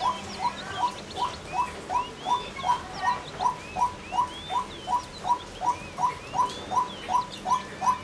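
Female white-breasted waterhen calling: a monotonous run of short, identical notes repeated about three times a second.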